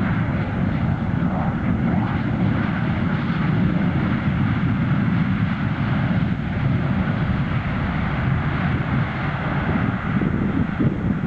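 Boeing 737-400 airliner landing, its CFM56 turbofan engines making a steady low rumble.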